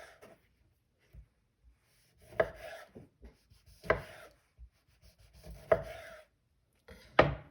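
A knife cutting through fruit and knocking on a cutting board: four separate chops, each about a second and a half after the last.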